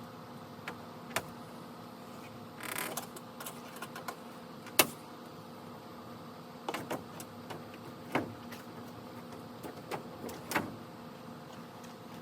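Scattered sharp clicks and knocks of things being handled, the loudest a little under five seconds in, with a brief scraping rustle about three seconds in, over a steady hum.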